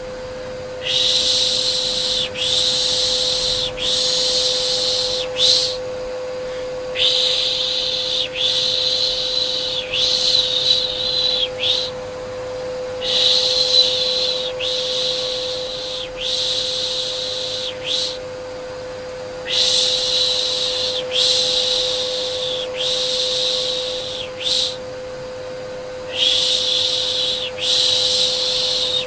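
Repeated soothing 'pişşş' shushing sounds, about one a second in runs of several with short pauses between runs, over a steady vacuum cleaner hum with one constant tone.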